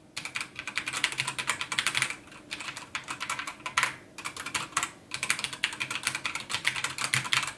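Fast typing on a Razer BlackWidow Chroma V2 keyboard with Razer Yellow linear switches, the keys bottoming out in a quick run of clacks with no switch click, broken by a few brief pauses.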